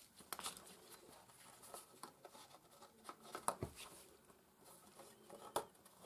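Faint rustling and sliding of paper and card sheets being handled and folded by hand, with a few sharp taps, the loudest about three and a half seconds in and again about five and a half seconds in.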